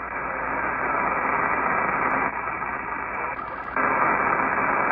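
Steady static hiss from a Kenwood TS-590S transceiver receiving lower sideband on the 27 MHz CB band, in a gap between voice transmissions. A short, brighter burst of hiss comes about three and a half seconds in, after which the static gets a little louder.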